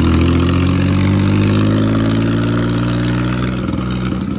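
Mahindra 265 DI tractor's three-cylinder diesel engine running loud under throttle, its pitch sliding slowly down over the first three seconds or so, then holding steady.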